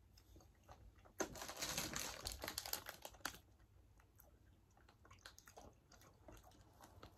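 Plastic candy bag crinkling and rustling as it is handled, for about two seconds starting a second in, then only faint scattered rustles and clicks.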